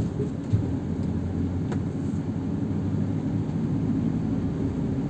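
A car driving along: a steady low engine and road rumble, with one short knock about half a second in.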